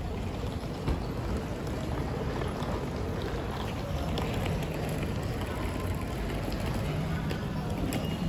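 Street ambience with traffic: a steady wash of car and bus noise, faint voices near the end, and a single knock about a second in.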